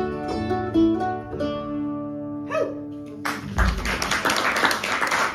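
Mandolin, fiddle and acoustic guitar play the closing notes of a tune and hold the final chord, letting it ring. About three seconds in, audience applause breaks out and carries on.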